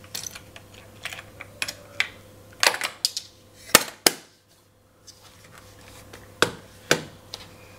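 Clicks and knocks of a Canon EOS RT 35mm film camera being handled: its hinged back door is swung shut, with the two sharpest clicks just before and at about four seconds in, and a few softer knocks as the body is turned over.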